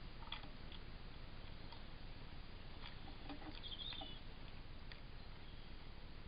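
Faint outdoor background hiss with a handful of scattered soft clicks and one brief high chirp about three and a half seconds in.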